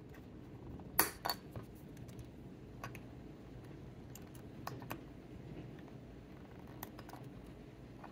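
Flush cutters snipping the excess resistor leads off the back of a circuit board: a string of sharp, separate clicks, the loudest about a second in.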